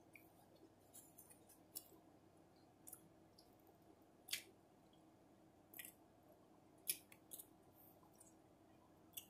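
Faint, wet mouth clicks and smacks from chewing a mouthful of soggy hoagie, scattered about a second apart over near silence.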